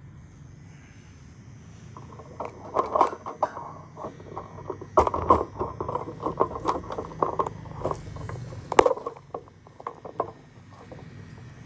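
A run of irregular clicks, clatter and scrapes over a faint steady low hum, starting about two seconds in and dying away near the end.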